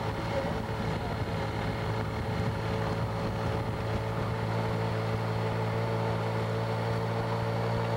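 Camera motorcycle's engine running steadily at a constant low speed, pacing the racers, with a steady hiss underneath.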